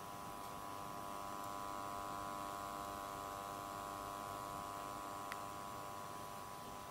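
Mains power transformer of a NAD 7020 receiver buzzing steadily at mains frequency, a rich, even buzz with no change in pitch. The owner puts it down to the transformer vibrating against its loose outer casing, which resonates and makes the buzz worse. A faint click a little past five seconds in.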